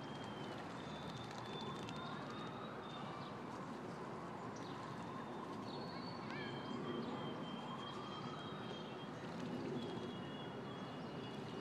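Outdoor ambience: a steady background of distant city noise, with thin, high whistled bird calls, several held for a second or two, and one rising whistle about six seconds in.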